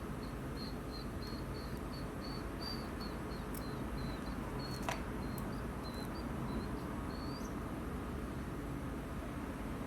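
A small bird chirping over and over in short, high notes, about two or three a second, which stop about three-quarters of the way through, with one sharp click about halfway, over a steady low background rumble.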